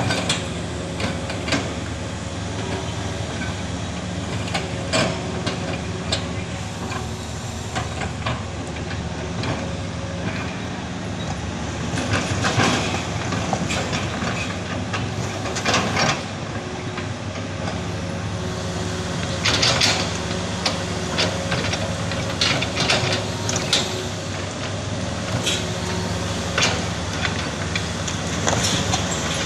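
Heavy diesel machinery running steadily, with irregular metallic clanks and rattles on top.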